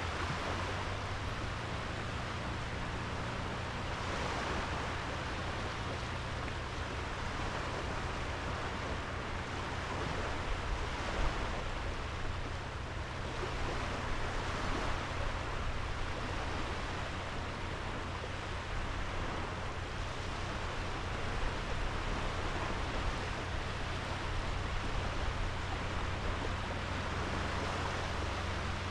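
Small sea waves washing steadily onto a sandy beach, a continuous surf wash with gentle swells in loudness. A faint low steady hum sits underneath.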